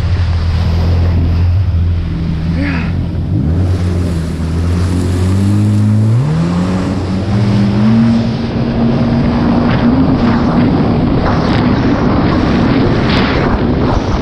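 Jet ski engine running under way, with water spray and wind rushing past. About six seconds in the engine note rises as the throttle opens, then holds at a higher pitch as the craft speeds up.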